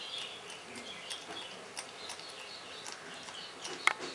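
Juvenile North American porcupine chewing leaves: scattered crisp clicks of its teeth on the foliage, with a sharp crunch near the end. Faint high chirping repeats throughout.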